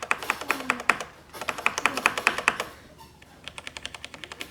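Keys being pressed in quick runs on a Royal Kludge RK71 mechanical keyboard with red linear switches: sharp clacks in two runs with a short break about a second in, then a quieter, faster patter near the end.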